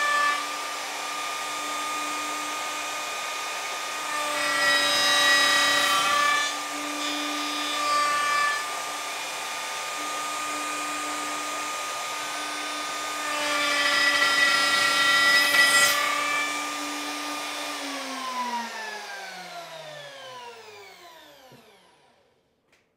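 Plunge router with a dovetail bit running at steady speed, growing louder in three spells as the bit cuts dovetail tails in a wooden board. About 18 seconds in it is switched off and winds down with a falling whine, stopping just before the end.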